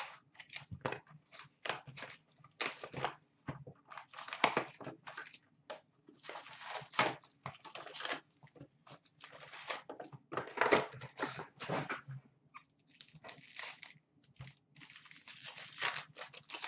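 Hands tearing open a cardboard Upper Deck SP Authentic hockey card box and pulling out the wrapped card packs: a run of irregular tearing, crinkling and rustling with sharp cardboard clicks.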